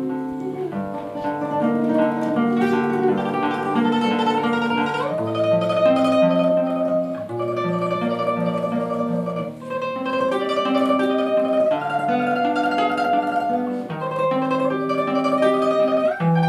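Solo classical guitar playing a tremolo melody in the upper voice over a moving bass line, with no pauses.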